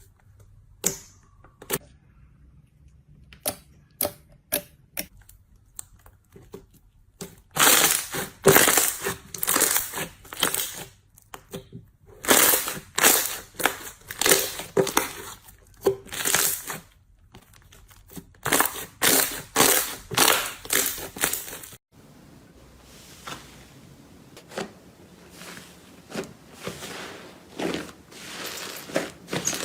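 Slime being squeezed and pressed by hand, giving scattered clicks at first, then dense crackling and popping in repeated squeezes. About two-thirds of the way in it cuts to a softer, quieter squishing.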